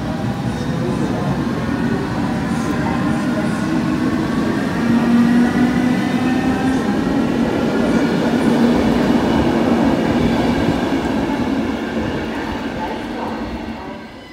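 Two coupled Belgian MS80 electric multiple units pulling away. Their electric traction whines in several tones that rise slowly in pitch as the train accelerates, over a steady rumble of wheels on the track, and the sound fades near the end.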